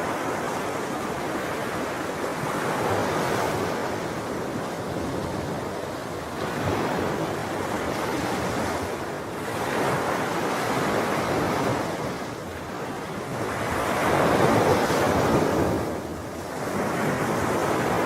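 Sea waves breaking and washing on the shore in slow swells, each surge rising and falling over a few seconds, the biggest one near the end.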